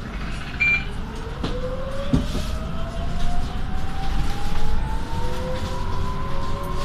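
City bus pulling away from a stop: a whine rises steadily in pitch as the bus gathers speed, over the low rumble of the ride, with a couple of knocks near the start.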